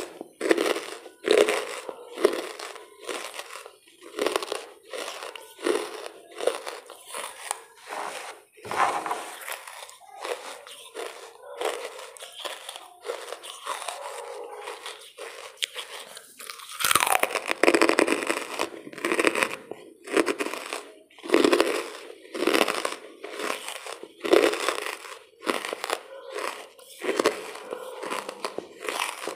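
Lumps of charcoal being bitten and chewed close to the microphone: a run of dry, sharp crunches about once a second, with a denser stretch of crunching a little past halfway.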